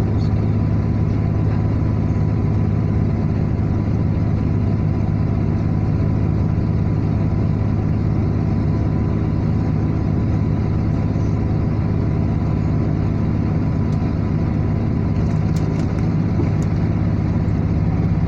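Car travelling along a highway: a steady, unchanging drone of engine and road noise.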